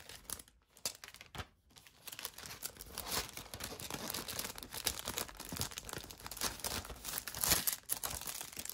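Clear plastic wrap crinkling and tearing as it is handled and pulled off a DVD case, a dense run of crackles that thins out briefly in the first couple of seconds.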